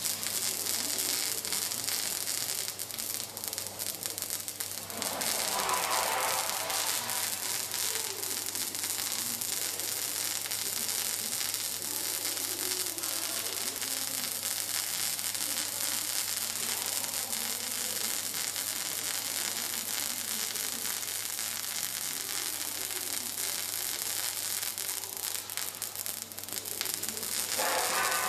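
Robotic arc welding: the welding arc sizzling and crackling steadily, over a low steady hum, with a brief louder swell about five seconds in and again near the end.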